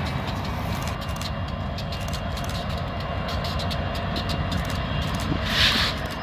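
BNSF diesel locomotives hauling a freight train past at low speed: a steady low rumble of engines and wheels on rail, with a short hiss near the end.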